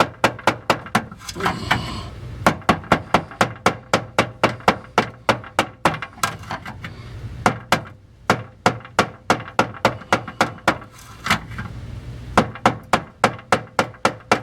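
Hammer striking a screwdriver against a Ford Ranger fuel pump's lock ring to drive it round and loosen it: sharp metallic taps at about four a second, in runs with brief pauses.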